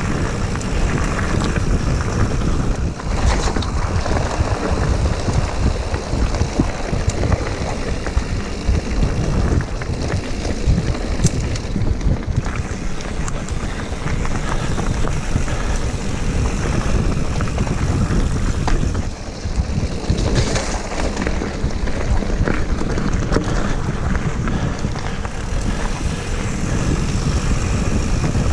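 Mountain bike riding along a dirt singletrack trail: a steady rush of wind on the on-bike camera's microphone mixed with tyre and drivetrain noise, broken by scattered clicks and knocks from the bike over the rough ground.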